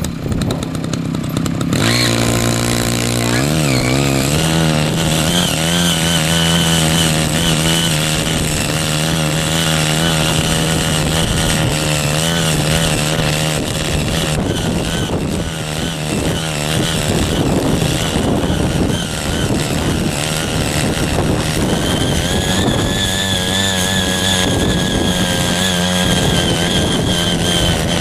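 Small engine of a CY50 mini foldable cultivator running hard while deep tilling soil with its rotary tines. It speeds up about two seconds in, then runs at high revs with a wavering pitch as the tines bite, and rises again near the end.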